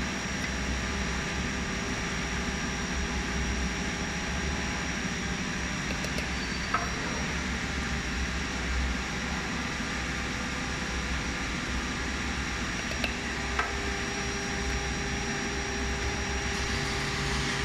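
Semi-automatic powder auger filling machine running: a steady mechanical hum with several steady tones, joined about three-quarters of the way through by a stronger steady tone. A few brief knocks come from jars being handled on the steel tray.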